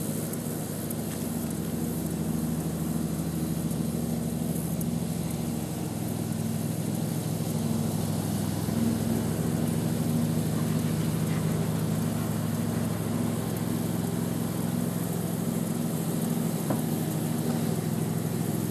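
Steady drone of an engine or motor running at a constant speed, a low hum that does not change.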